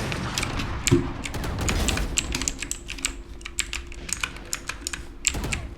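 Keys of a Bajeal HJK901 full-size mechanical keyboard clacking in quick, irregular presses while gaming, over low game sound.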